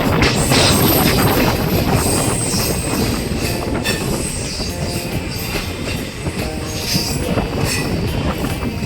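Passenger train in motion: steady rumble of the coaches' steel wheels on the rails, with high-pitched wheel squeal and scattered clatter over the track.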